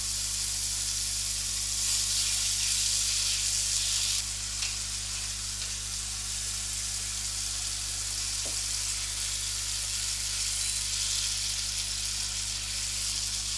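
Diced tomato, onion and garlic sizzling in olive oil in a frying pan, a steady hiss that is a little louder for the first few seconds, with the vegetables stirred with a silicone spatula.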